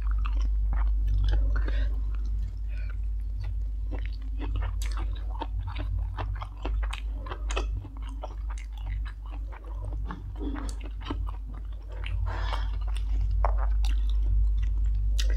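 Close-miked chewing of a person eating stir-fried instant noodles and green papaya salad: a dense stream of short, irregular mouth clicks over a steady low hum.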